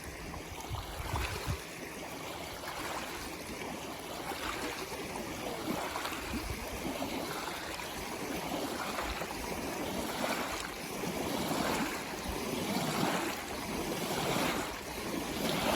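Rushing, splashing river water that swells about once a second.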